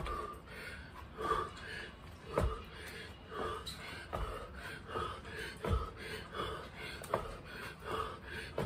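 A man breathing hard in rhythmic huffs, about one a second, while doing side hops, with dull thuds as his feet land.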